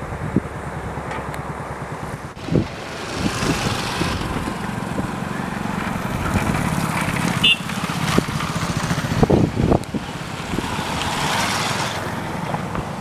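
Diesel locomotive engine running steadily for the first couple of seconds. Then gusty wind buffets the microphone, with a few low thumps.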